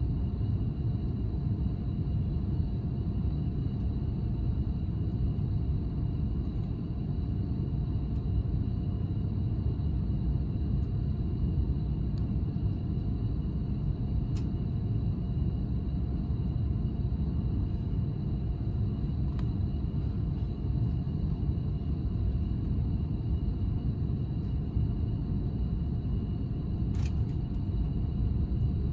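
Freight train of container wagons rolling past, heard from inside a standing passenger train's carriage: a steady low rumble with a faint steady hum and a couple of sharp clicks.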